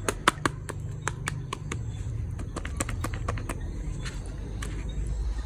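A quick run of sharp clicks, a few a second, thinning out after about three and a half seconds, over a steady low rumble.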